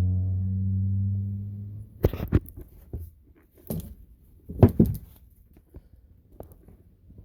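A low, steady hummed "mmm" from a man's voice for about two seconds, slowly fading, followed by a few sharp clicks and knocks of handling.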